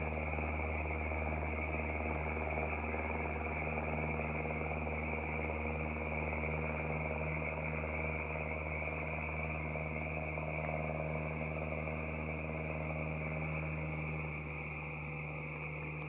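A chorus of frogs calling steadily over a low, steady mechanical hum.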